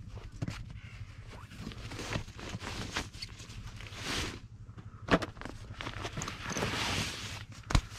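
Fabric rustling and swishing as a rucksack's drawcord top is opened and a checked cloth item is pulled out of the pack, with scattered small clicks of gear being handled. Two sharp clicks stand out, one about five seconds in and one near the end.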